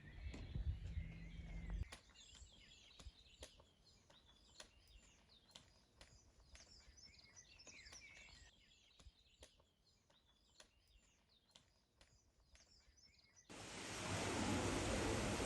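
Faint chirping of small birds with scattered soft clicks, after a short stretch of low rumble at the start. Near the end a loud, even rushing noise cuts in suddenly and drowns them out.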